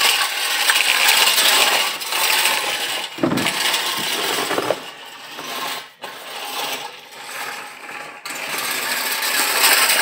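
Handmade toy tractor rattling and scraping as it runs over a stone floor, its metal parts clattering in a dense, continuous noise that drops out briefly a few times.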